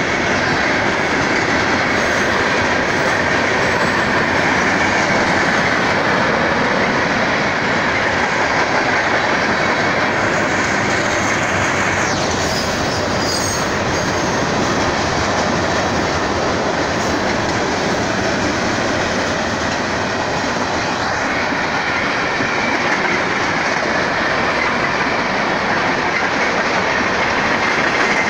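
A BNSF freight train's cars rolling steadily past, a continuous loud rumble and clatter of steel wheels on the rails.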